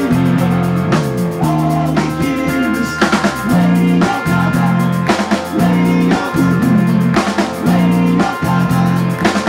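Live band music: a drum kit keeping a steady beat under sustained chords that change every second or so.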